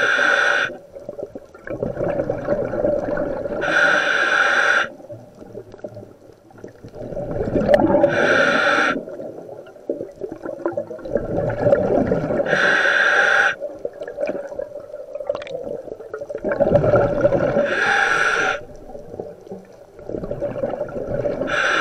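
Scuba diver breathing underwater through a regulator in a full-face mask: a hiss on each inhale, about every four seconds, alternating with the rumble and gurgle of exhaled bubbles.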